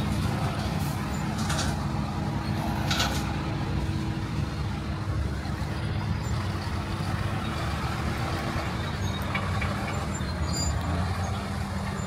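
Heavy trucks' engines running amid road traffic, a steady low rumble, with two short air-brake hisses about one and a half and three seconds in.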